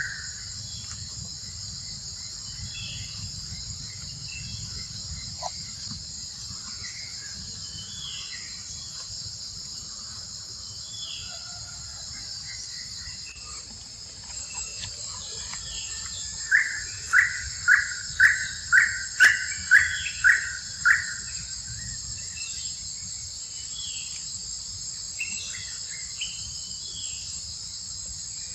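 Outdoor ambience of insects droning steadily, with scattered short bird chirps. About halfway through, a run of about nine loud, evenly spaced calls comes at roughly two a second.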